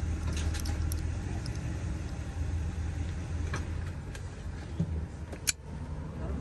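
Number dials of a Master Lock combination lock being rolled by hand, giving small scattered clicks, with one sharper click near the end, over a steady low hum.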